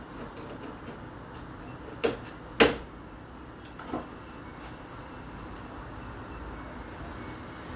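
Three sharp knocks, the second the loudest, with a few faint clicks around them, like parts or a panel being handled and set down.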